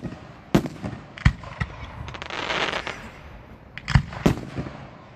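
Aerial firework shells bursting: a string of sharp bangs, with two pairs about a second in and near the end. In the middle, a hissing crackle swells and fades.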